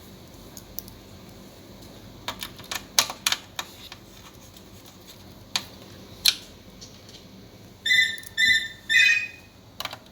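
A run of sharp clicks and taps, clustered about two to four seconds in with a few more later, then three short chirps in quick succession near the end.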